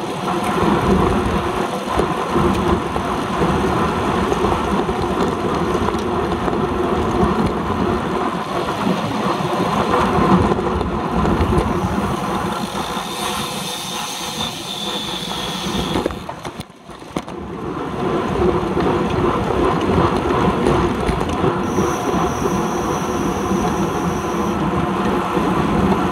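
Wind rushing and road rumble picked up by a handlebar-mounted camera on a road bike riding in a racing bunch, a steady noisy roar with rattling vibration. It drops away briefly about two-thirds of the way through. A thin high whine sounds for a few seconds near the end.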